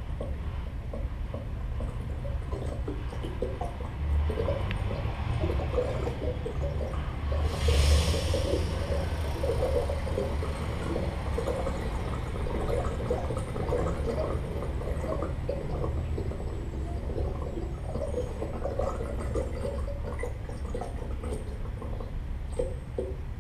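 Amplified plant instruments played through loudspeakers: dense, irregular crackling and scratching over a low rumble, with a brief louder hiss about eight seconds in.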